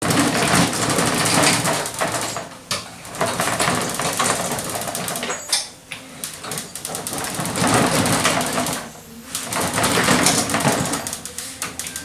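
Gasless flux-core MIG welding: a dense, loud crackle of the arc in runs of a few seconds, broken by short pauses between beads.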